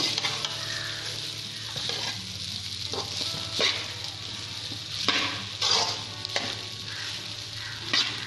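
Fried rice sizzling in a metal pan while a slotted metal spatula stirs and tosses it, scraping against the pan several times at irregular intervals. The rice is being stir-fried so it gets lightly fried.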